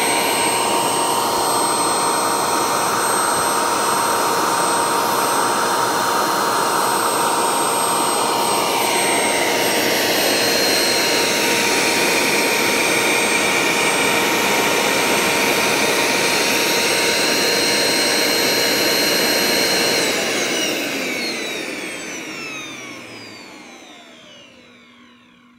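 Dyson DC07 vacuum cleaner running: a steady motor whine over rushing air, with the air noise shifting in pitch about a third of the way in. Near the end the motor stops and winds down, its whine gliding lower and fading away.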